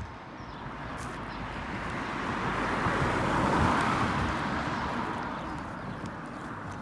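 A road vehicle passing close by, its noise rising to a peak about three and a half seconds in and then fading away.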